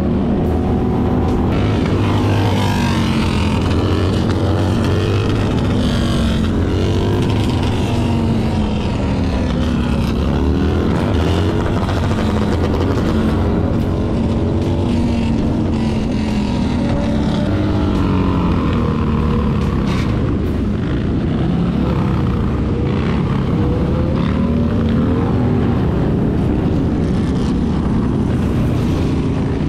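Several motorcycle engines running at once, their pitches rising and falling and overlapping as they are revved and ridden.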